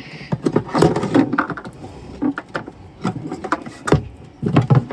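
Irregular knocks and clinks of hand tools being handled against metal in a cramped boat engine compartment.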